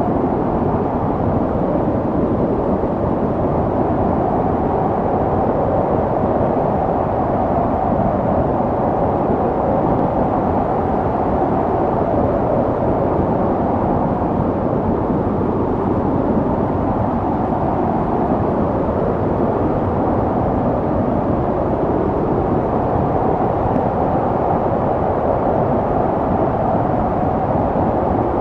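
Snowstorm wind blowing steadily, a dense low rushing noise that swells and eases slightly now and then.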